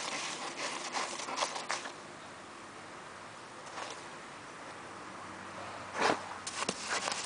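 Dogs digging in loose sand with their front paws: a run of quick scratching rasps, a quieter stretch in the middle, then a louder rasp about six seconds in and more scratching near the end.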